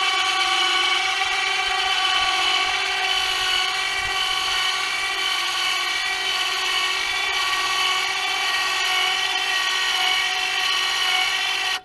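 Electric 2,500-pound winch on a garden-tractor forklift, running off the battery with the engine off, letting the forks down. A steady whine, heard in sped-up footage, that cuts off suddenly at the end.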